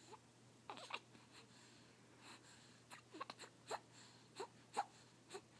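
A baby's faint little vocal noises and mouth sounds: short squeaks and clicks, a few at a time with pauses between.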